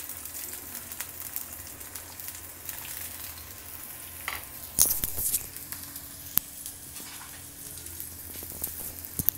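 Chopped onions frying in hot soybean oil in a black wok: a steady sizzle dotted with small pops, with a few sharper clicks, the loudest about five seconds in.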